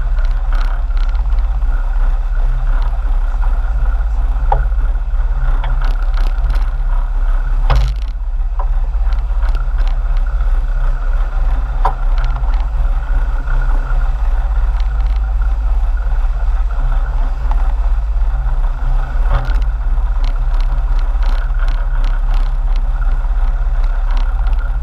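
Sportfishing boat's engines running steadily under way, a constant low rumble with water rushing in the wake. A few short sharp knocks or wind gusts cut across it, the loudest about eight seconds in.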